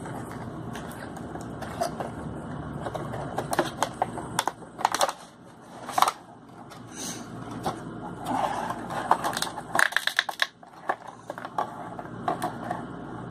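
A cardboard Funko Pop box being opened and its clear plastic insert pulled out and handled: irregular crinkling, scraping and sharp clicks of thin plastic and cardboard.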